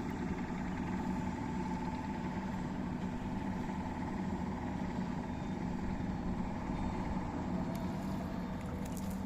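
An engine running steadily with an even, unchanging hum.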